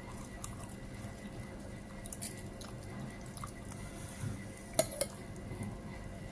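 A spoon clinking against a plate while eating: a few light, sharp clinks, the loudest two close together near the end.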